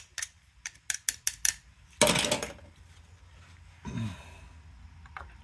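Light metallic clicks and clinks of hand tools and small engine parts being handled, a quick run of them in the first second and a half, then a short scrape about two seconds in.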